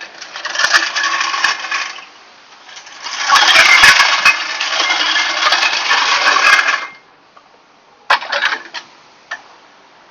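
A power tool running against metal in three bursts: about two seconds, then a longer run of about four seconds, then a short burst near the end. It is working on the bolts that hold the truck's front bumper to the frame.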